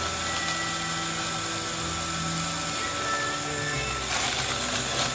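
Roomba robot vacuum running with a steady motor whine and hiss, under background music with held low notes.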